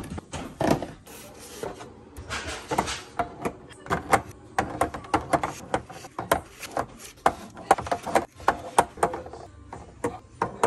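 Groceries being put away by hand: small drink bottles set into a refrigerator door shelf, then eggs placed one by one into a clear plastic egg holder. The result is a steady run of light clicks and taps, several a second.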